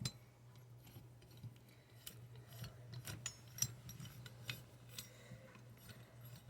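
Scattered small metallic clicks, taps and scrapes of hand tools and parts as a 125 cc Tao Tao cylinder head is stripped to remove a valve, over a steady low hum. The sharpest click comes about three and a half seconds in.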